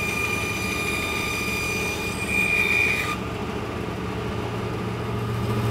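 Vertical bandsaw running with a steady low hum, and a high whine as birch plywood is backed straight out of the cut along the blade. The whine cuts off suddenly about three seconds in as the board comes clear of the blade, leaving the saw running.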